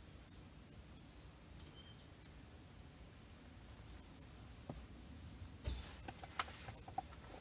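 A cricket-like insect chirping in short high phrases about once a second, with a few light clicks and knocks in the last couple of seconds.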